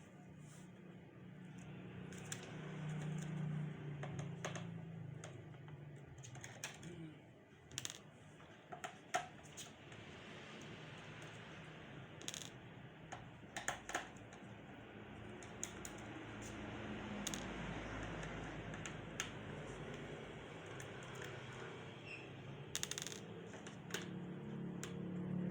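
Scattered small sharp clicks and metallic taps of screws, tools and the plastic case of an HP 14-am008tu laptop being taken apart by hand, over a steady background hiss.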